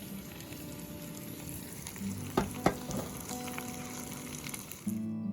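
Thick-cut bacon sizzling and frying in a pan, with two sharp knocks about two and a half seconds in. Acoustic guitar music starts near the end.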